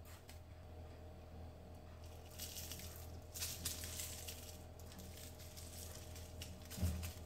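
A teaspoon of sugar being scooped and handled over apple slices in a lined pan: two short gritty rustles, then a soft knock near the end, over a low steady hum.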